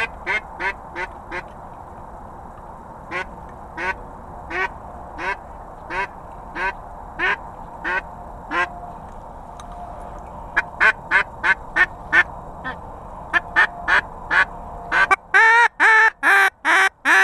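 Duck quacking in regular, evenly spaced runs, each quack dropping in pitch. The runs speed up after about ten seconds and end in a string of longer, much louder quacks.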